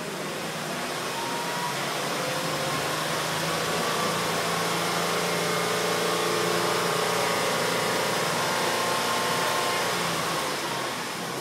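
Car engine brought up from idle to raised revs and held there, its pitch climbing over the first couple of seconds and dropping back near the end. The engine has a large vacuum leak from a vacuum hose that is sucked open while it runs.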